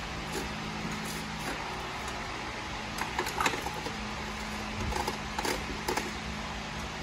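Lug nuts being spun onto a truck wheel's studs by hand, giving a few short light metallic clicks and clinks. These fall in two clusters, a little after the middle and near the end. Under them runs a steady hum of shop machinery.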